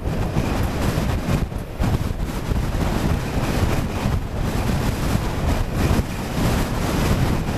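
Strong, gusty wind buffeting the microphone of a camera on a moving bicycle: a steady rushing noise that dips briefly a couple of times.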